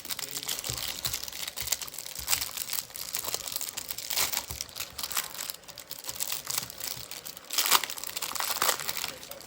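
Crinkling and rustling of trading-card packaging and cards being handled: a run of irregular crackles with a louder burst near the end.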